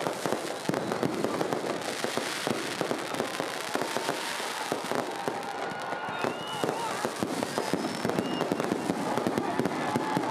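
Aerial fireworks display: a dense, rapid run of bangs and crackling bursts, with a few short whistling tones about six seconds in.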